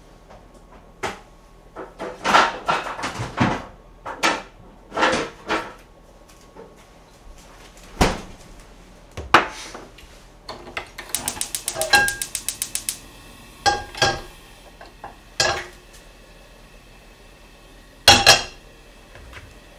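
Kitchen handling sounds: bottles and a sauce container picked up and set down on the countertop, and utensils and a wok clinking, heard as a string of separate knocks and clatters. A quick run of about a dozen clicks comes around the middle, and a louder clatter comes near the end.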